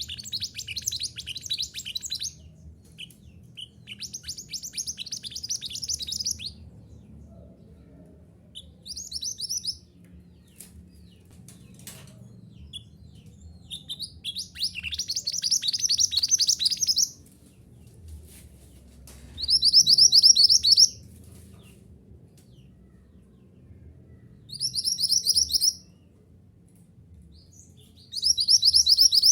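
Mantenan gunung songbird singing: short phrases of rapid high trilled notes, each lasting one to three seconds, repeated after pauses of a second or more.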